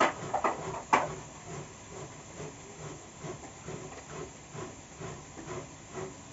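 Zucchini being grated on a metal box grater: a steady rhythm of rasping strokes, about two to three a second, with a couple of sharp knocks in the first second.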